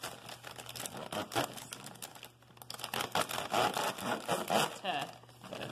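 Plastic snack bag crinkling and rustling as it is cut open with a large kitchen knife, in irregular crackles and short bursts.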